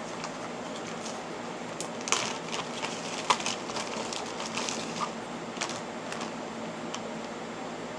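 Scattered clicks and knocks of objects being handled, with a sharper knock about three seconds in, over a steady background hiss.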